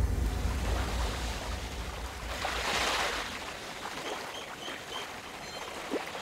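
Gentle waves washing up onto a sandy beach, one wash swelling and then drawing back about halfway through.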